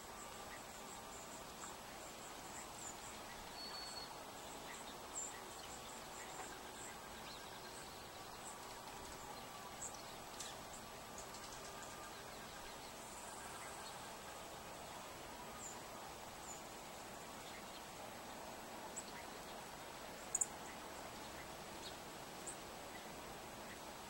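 Faint outdoor background with scattered short, high ticks and chirps from house sparrows at a seed feeder, and one sharper click about twenty seconds in.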